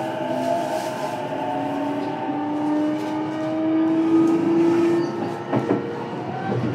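E233-series electric train standing at a platform with its doors open: its onboard equipment hums in several steady tones that slowly rise in pitch. A few clicks come about five and a half seconds in.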